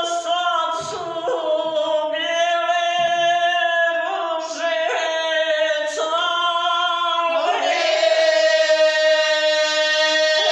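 Two women singing together unaccompanied, holding long, steady notes with short breaks between phrases; the voices grow fuller and brighter about seven seconds in.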